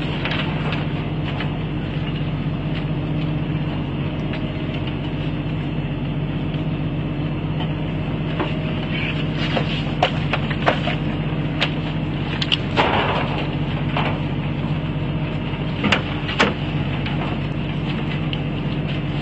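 A boat's engine running steadily with a constant drone, while crabs being handled at a stainless steel sorting tray make occasional sharp knocks and clatters, with a small cluster of them about two thirds of the way through.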